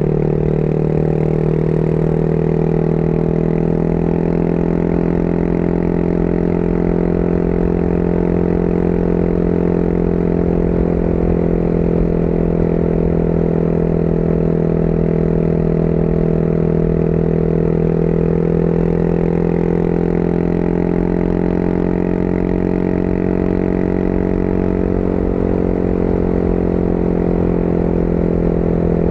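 Motorcycle engine running at a steady cruising speed, its pitch holding nearly constant with only a slight dip and rise, over a low rumble of wind buffeting the microphone.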